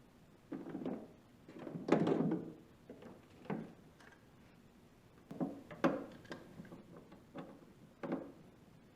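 Knocks and clunks of a Festool CT36E dust extractor's parts being fitted together by hand: about half a dozen separate clunks, the loudest about two seconds in and a cluster around six seconds.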